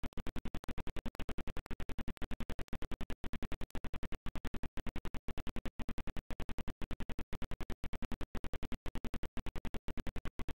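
Corrupted audio track: the sound cuts in and out at a steady rate of about eight times a second. This makes a rough, rhythmic stutter that buries the room sound. The recording has deteriorated over time.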